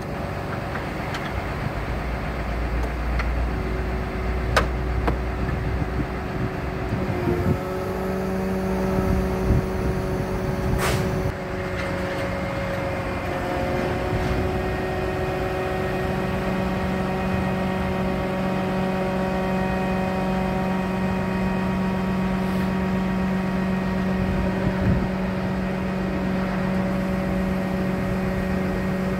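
Bucket truck's engine and the Altec aerial boom's hydraulics running steadily as the boom is moved, a droning hum that grows louder about seven seconds in and again around sixteen seconds in. Two sharp clicks sound, one a few seconds in and one about eleven seconds in.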